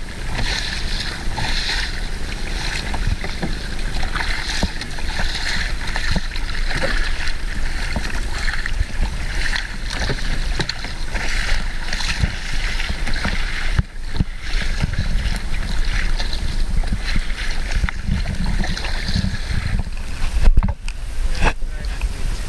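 Choppy seawater splashing and sloshing against a sea kayak as it is paddled, with a steady low rumble of wind on the microphone. The sound drops out briefly twice near the end.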